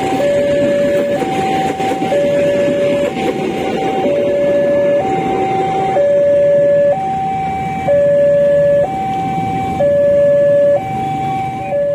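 Railway level-crossing warning alarm sounding a two-tone chime, alternating a high and a low note about once a second, over the low rumble of a passenger train pulling past.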